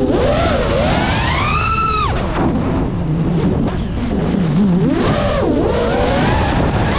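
A 5-inch FPV quadcopter's motors and propellers whining, the pitch climbing and falling sharply with the throttle through a dive and pull-out, over wind rush on the onboard camera.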